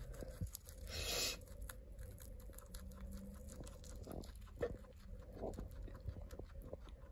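Guinea pig chewing a kale leaf: a quick, soft run of crunching bites, with a brief louder rustle of the leaf about a second in.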